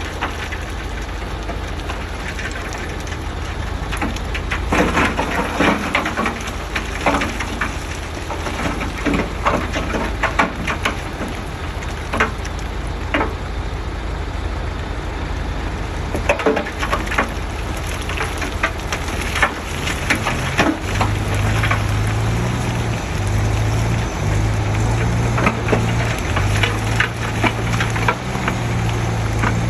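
Heavy earthmoving machinery at work: a diesel engine rumbles under a jumble of crackling and crunching from soil and debris being moved. About two-thirds of the way in, a steadier, louder engine hum sets in.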